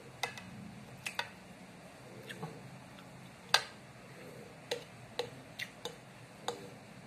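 A metal spoon and fork clinking against a white ceramic bowl while food is cut and scooped: about ten sharp separate clinks, loudest about halfway through.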